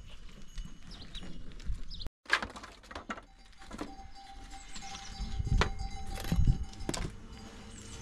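Dry firewood sticks knocking and clattering as they are dropped and laid on bare earth: several separate knocks a second or so apart, starting about two seconds in. Small birds chirp in the background.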